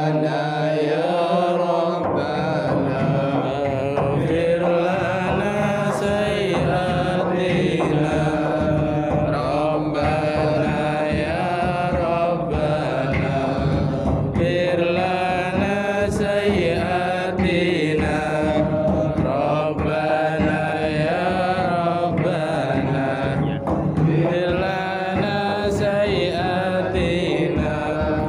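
Voices chanting a melodic Islamic devotional chant in long, wavering, drawn-out lines, with a steady low hum underneath from about two seconds in.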